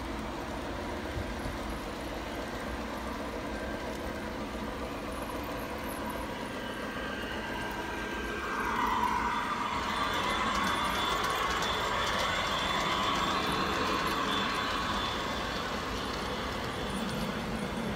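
G-gauge model trains running on garden track: a steady rolling rumble of wheels on the rails. From about eight seconds in it grows louder, with a higher whine, and eases back about fifteen seconds in.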